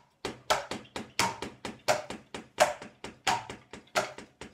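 Drumsticks striking the pads of a practice kit in a steady run of flams, about three strokes a second: each stroke is a quiet grace note landing a hair before the main hit, sometimes heard as a close double tap.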